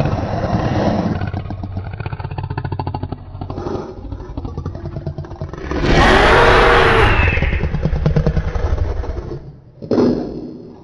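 Indominus Rex creature sound effect: a low, rumbling growl with a fast pulsing rattle, swelling into a loud roar about six seconds in, then a short growl near the end.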